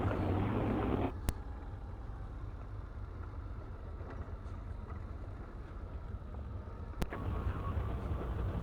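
Can-Am Outlander ATV's V-twin engine running low and steady at crawling speed, louder for about the first second and then easing off, with two short sharp clicks, about a second in and near the end.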